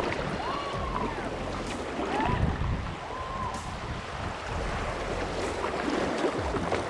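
Fast, shallow river water rushing and splashing around a kayak's hull as it runs a choppy riffle, with wind buffeting the microphone.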